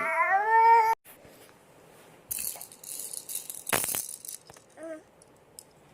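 A baby's whiny cry rising in pitch, cut off suddenly about a second in, then a baby's rattle toy shaken in short bursts with a sharp knock in the middle.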